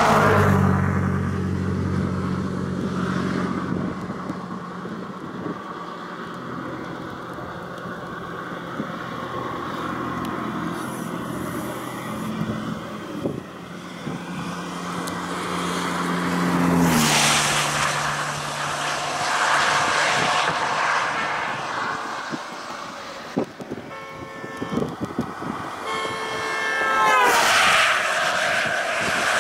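A vehicle engine runs with a steady low hum under wind and road noise; about 17 seconds in its note drops lower, and then it fades. Near the end a short falling tone sounds.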